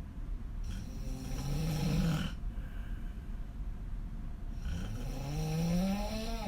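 A woman snoring hard while lying on her back: two long snores about four seconds apart, the second rising steadily in pitch.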